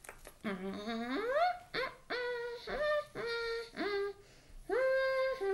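A woman's voice humming a tune in short, steady held notes, opening with a rising glide and ending on a longer held note.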